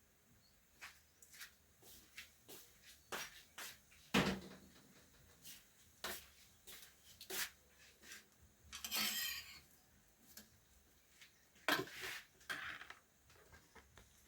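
Kitchen clatter: a series of separate light knocks and clinks of things being handled and set down, the loudest about four seconds in, with a brief scraping rustle around nine seconds.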